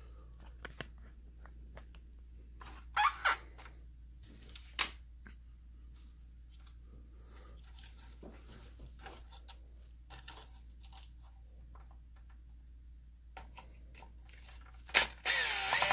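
Cordless drill/driver running in short bursts, backing out the screws that hold a projector's optical assembly, with small clicks of handling in between. The longest and loudest run comes near the end.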